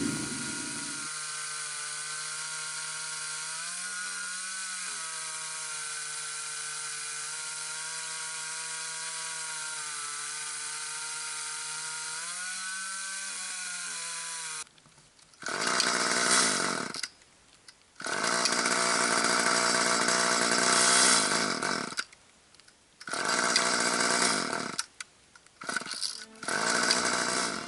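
Gas chainsaw bucking a log. Its engine holds a steady high note for about the first half, rising slightly twice, then cuts in loud full-throttle bursts broken by sudden near-silent gaps.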